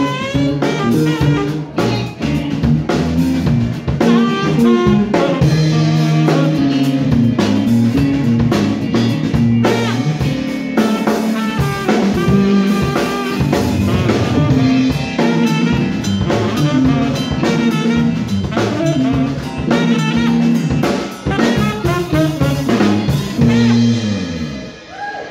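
Live funk band: saxophone lead over electric bass, electric guitar and drum kit. The band holds a final note and the music stops near the end.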